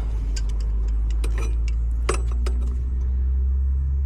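Irregular sharp clicks and taps of hand work on a bent copper refrigerant line, over a steady low hum.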